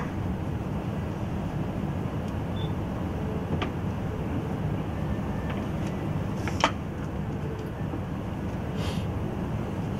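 Steady low room rumble, like air conditioning or hall ventilation, with two short sharp clicks, the louder about two-thirds of the way through.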